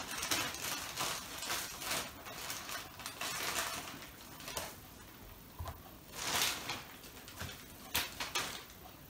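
Soft rustling and a few light knocks as porcini mushrooms are handled and set down on baking paper on a tabletop, the loudest rustle about two-thirds of the way through.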